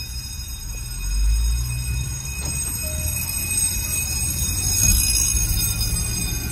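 Land Rover LR4 driving, heard from inside the cabin: a steady low rumble of engine and tyres on the road, swelling about a second in, with a thin steady high whine above it.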